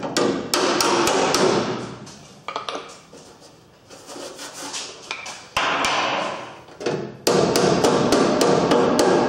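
Hammer blows on the sheet-steel flange of a VAZ 2110's front end, tapping the edge down to stiffen it. The blows come in quick runs with a short metallic ring: a cluster about a second in, a few around six seconds, and a dense run from about seven seconds on.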